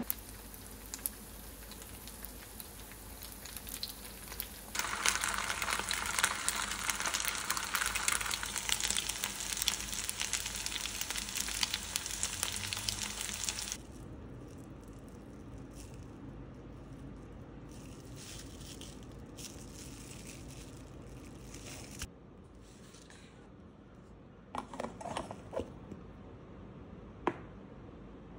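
Tteokgalbi (minced-meat patties) frying in oil in a nonstick pan, sizzling and crackling loudly for about nine seconds. After that, quieter crinkling of cling-film-wrapped patties being handled, with a few light plastic clicks near the end.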